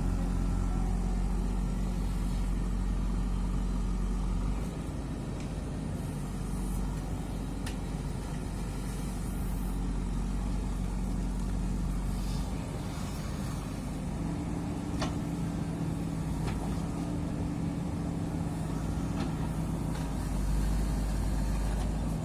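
JCB 3DX backhoe loader's diesel engine running steadily, its note and loudness shifting a few times as the load on it changes.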